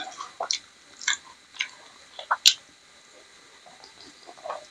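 Close-miked chewing and lip smacking on a mouthful of rice and kidney bean curry: irregular wet mouth clicks, with a sharp smack about two and a half seconds in, then a quieter stretch.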